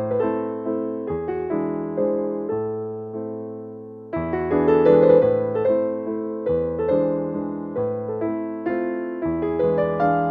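Background music of soft piano notes picked out in a gentle melody, each note struck and fading, with a louder phrase starting about four seconds in.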